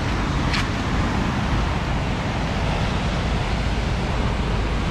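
Steady wind rumbling on the microphone over surf breaking on the beach, with one short click about half a second in.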